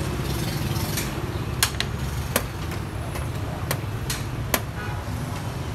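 Xiangqi pieces clacking down onto the board as they are moved and captured, several sharp clicks spread unevenly, over a steady low hum of street traffic.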